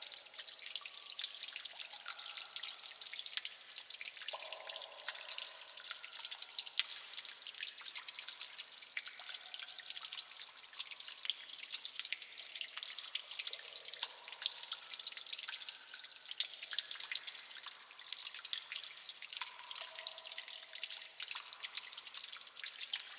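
Water dripping in a cave: many irregular drops falling into water, with short, echoing plinks at different pitches over a steady high hiss.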